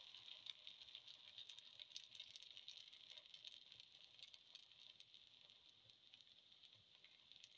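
Faint sizzling and crackling of rice-flour pancake batter frying in oil in the cavities of a multicavity pan, slowly quietening.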